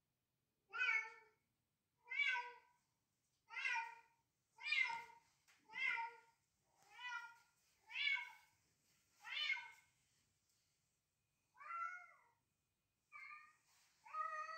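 A cat meowing over and over, about one meow every second and a quarter. After a short pause, three more meows at a slightly different pitch come near the end.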